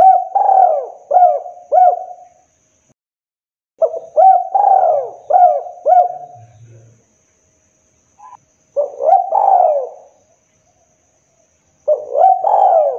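Spotted dove cooing: four phrases of short, quickly repeated arched coos, one every three to four seconds.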